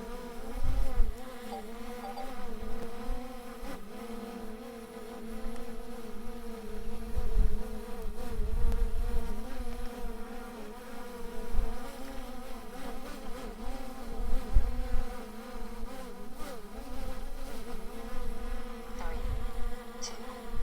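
DJI Mini 3 Pro drone's propellers buzzing steadily, the pitch wavering slightly as the motors work against the wind. Wind gusts rumble on the microphone now and then.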